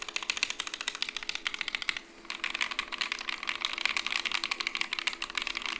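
Rapid typing on a Corne V3 split ergonomic keyboard with Obsidian Pro V1 switches, a wood plate and OTC 9009 keycaps: a quick run of key clicks and thocks. The typing breaks off briefly about two seconds in, then resumes faster and denser.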